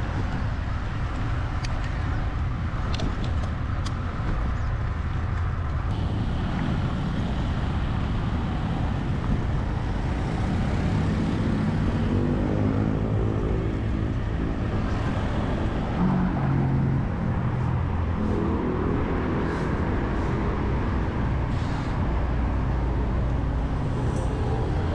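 Road traffic heard over a steady low rumble of wind and road noise, with a motor vehicle's engine droning close by from about halfway through.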